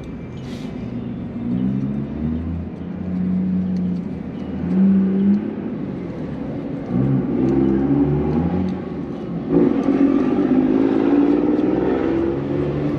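A motor vehicle engine running nearby, its pitch holding and then rising and falling, getting louder in the second half.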